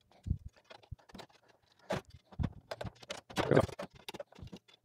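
Metal antenna rods and tubes clicking and knocking against each other and the wooden desk as they are handled, in irregular light taps with a couple of short clusters.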